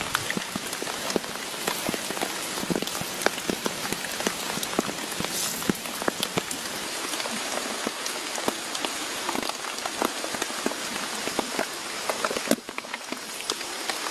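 Steady rain falling, with many separate drops striking close by. The sound briefly drops away and shifts near the end.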